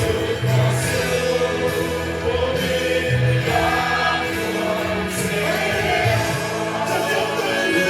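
Music with group singing over a steady bass line.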